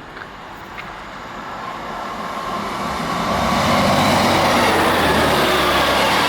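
A vehicle approaching close by. Its engine noise grows steadily louder over about three seconds, then holds loud.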